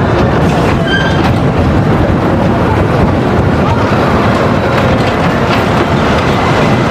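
Mine train roller coaster train rolling along its steel track, a steady rumble and clatter of wheels on rail.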